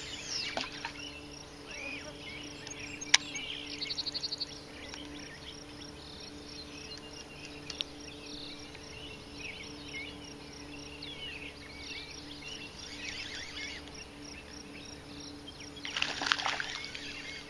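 Outdoor ambience of birds chirping and calling over a steady low hum, with a sharp click about three seconds in, a quick run of ticks a second later, and a louder rustling burst near the end.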